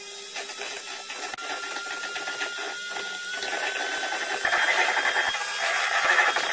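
Electric hand whisk running, its beaters whipping egg whites in a stainless steel bowl toward stiff peaks. The motor whine rises slightly in pitch, and the whisking gets louder from about four and a half seconds in.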